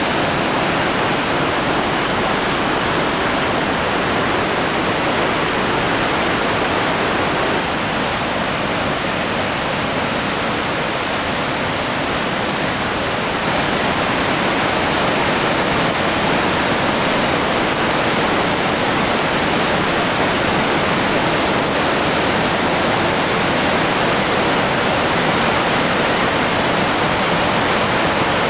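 Mountain river in spate, its floodwater rushing through a rocky gorge: a loud, steady rush of whitewater. It dulls slightly for a few seconds in the middle, then comes back full.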